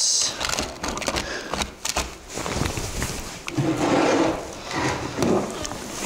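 Pebbles and a concrete block knocking, scraping and rattling against each other and a plastic tub as they are set in place by hand: an irregular run of clicks and knocks.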